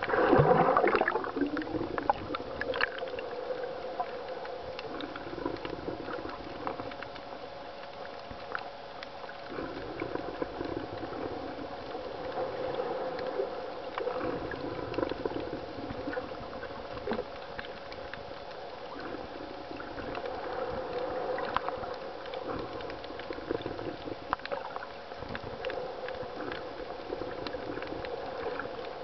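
Underwater sound through a swimmer's camera on a shallow reef: water surging and churning with scattered clicks under a steady hum. There is a louder rushing burst in the first second.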